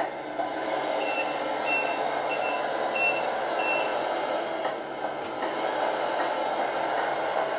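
The Tamiya MFC-03 multifunction sound unit in a 1/14 Scania R620 model truck plays a simulated diesel engine running steadily through its small speaker. A high reversing beeper sounds about five times, evenly spaced, from about a second in as the model backs up.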